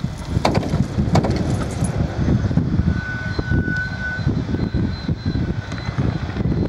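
Wind buffeting the microphone during a glider winch launch: a gusty low rumble. Two sharp knocks come in the first second or so, and a faint thin whine sounds around the middle.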